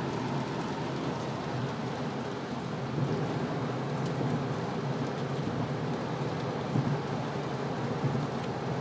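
Hail and heavy rain hitting a car's roof and windscreen, heard from inside the cabin. It makes a steady hiss, with a few sharper knocks about three, seven and eight seconds in.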